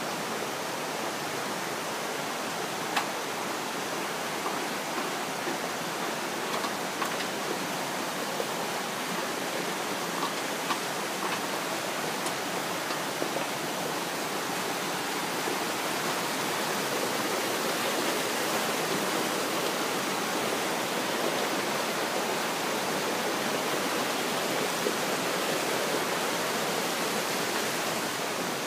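Steady rushing water of a mountain waterfall, with a few faint clicks here and there.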